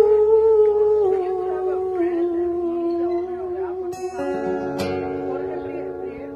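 A woman's voice holds a long sung note that steps down in pitch and fades, over acoustic guitar. About four seconds in, a last guitar chord is strummed and left ringing.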